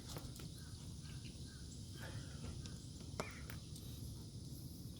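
Faint outdoor ambience: a steady low rumble with faint bird chirps and a few small clicks.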